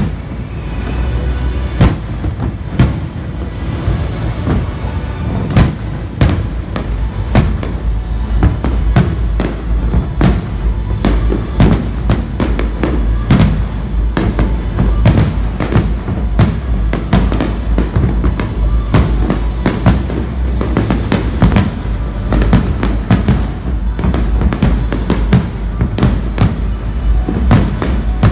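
Aerial fireworks bursting in quick succession: a dense, continuous barrage of sharp bangs and crackles, several a second, over a steady low rumble.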